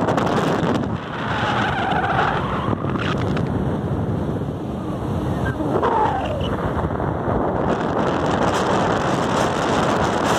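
Wind buffeting the phone's microphone on an open sea bridge: a loud, steady rumble, with road traffic passing on the bridge.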